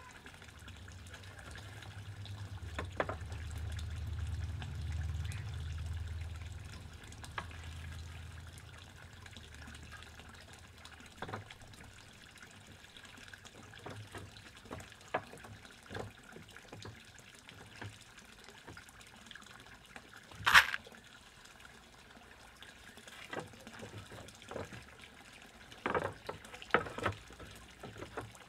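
Steady water trickling from the koi pond, with scattered knocks and clicks of wooden deck boards being handled; the sharpest knock comes about two-thirds of the way in, with a few more near the end. A low rumble swells and fades in the first several seconds.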